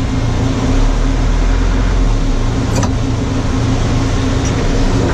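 Backhoe's diesel engine running steadily with a constant low hum. A deeper rumble swells about a second in, and there is a single brief click about three seconds in.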